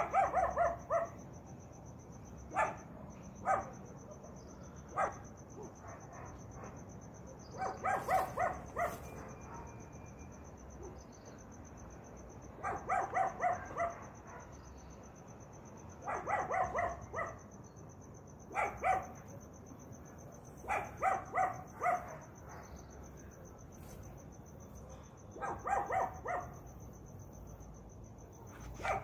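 A dog barking in scattered volleys of one to several quick barks. Under the barks runs a steady, high insect trill.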